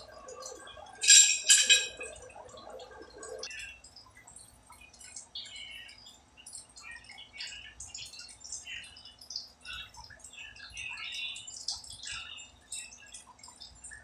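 Close-up handling noise of small plumbing work: two sharp clacks about a second in as the metal pressure switch is worked on its threaded fitting, then scattered crinkling and scratching as white thread-seal (Teflon) tape is pulled from the roll and wrapped.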